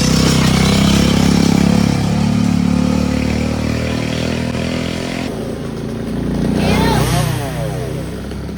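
Road traffic passing close by on a highway: a loud motor vehicle engine at first, then another vehicle sweeping past about seven seconds in.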